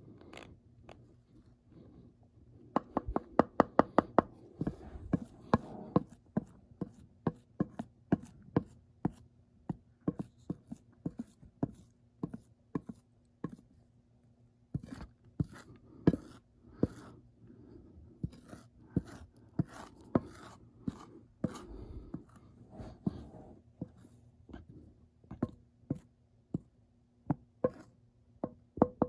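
Cornstarch crunching and squeaking as a spatula pats and presses it into a mound on a plate: runs of sharp, crisp clicks, several a second, in bursts with short pauses.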